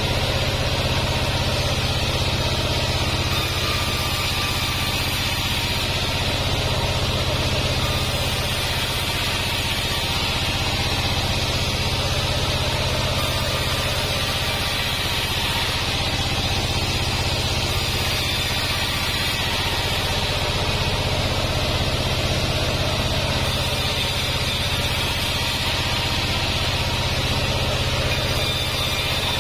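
Vertical band sawmill running steadily, with a constant low hum and a hiss from the blade ripping waru (sea hibiscus) boards into rafters.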